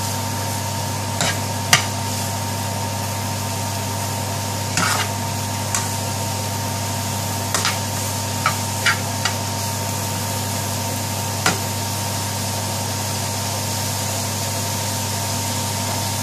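A metal spoon stirs sliced button mushrooms and onions in a non-stick frying pan, giving about ten short clicks and scrapes against the pan in the first twelve seconds over a steady frying sizzle.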